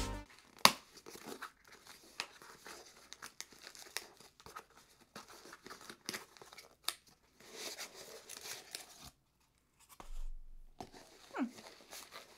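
Packaging being handled, with crinkling and rustling broken by small clicks and taps.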